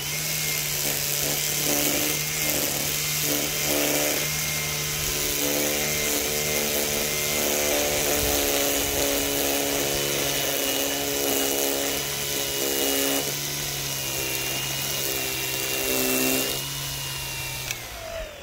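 EGO 56V PowerLoad carbon-fibre cordless string trimmer running while edging grass along a driveway, its spinning line whirring with a steady motor hum. It starts up at once and winds down with a falling whine near the end as the trigger is released.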